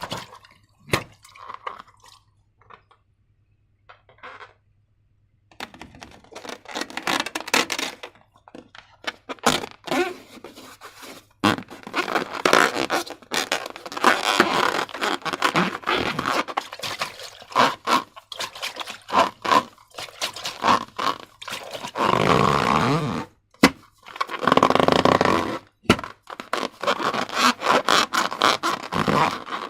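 Slime being worked by hand: sticky crackling, clicking and scraping in irregular runs, with a nearly quiet pause a few seconds in.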